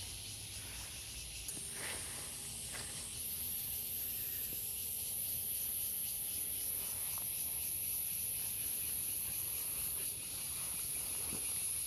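A steady, high-pitched chorus of insects droning in the surrounding woods, shifting slightly in pitch a couple of times, with a few faint rustles.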